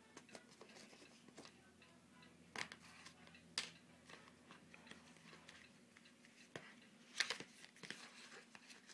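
Faint handling of a phone box and its packaging: a few soft clicks and rustles, the sharpest about three and a half seconds in and a small cluster near seven seconds, over a low steady room hum.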